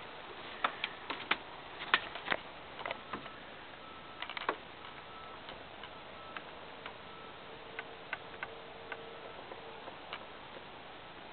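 Footsteps crunching and clicking on frozen snow: irregular sharp ticks that come every half second or so for the first few seconds, then thin out to a few scattered clicks once the walker stops.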